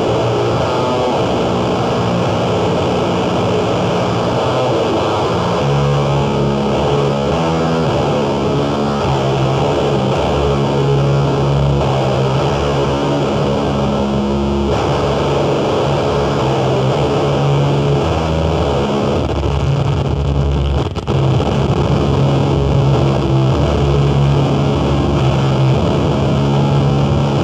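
Live noise music: a loud, dense wall of distorted, effects-processed sound over sustained low droning tones. The drone shifts pitch about six seconds in, and the sound cuts out for an instant about three-quarters of the way through.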